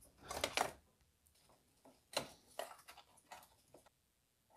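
Faint plastic clicks and rustles from a car's electrical wiring connector being unplugged and handled: a short cluster of clicks near the start, then a few single ticks.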